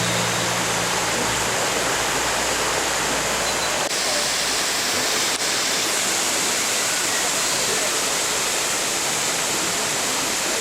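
Waterfall rushing steadily, a loud dense roar of falling water.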